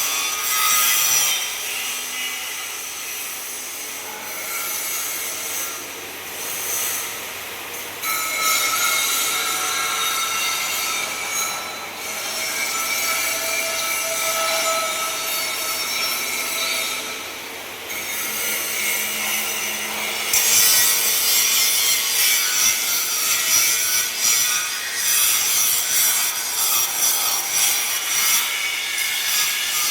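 Metal being cut, a harsh high scraping with shifting squealing tones that eases off and comes back several times, loudest in the last third.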